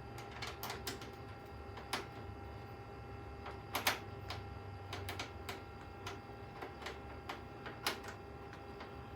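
Scattered light clicks and taps of PC parts being handled during assembly, loudest as a quick double click just under four seconds in, over a steady low hum.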